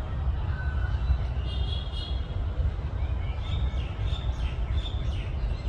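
Small birds chirping in short repeated calls, twice in bursts, over a steady low rumble.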